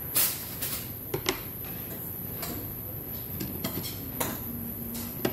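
Metal eating utensils clicking and clinking at the table: food scissors being set down and metal chopsticks working over a stainless steel bowl and a plate. It comes as a few short, sharp clicks at irregular spacing, the loudest just after the start.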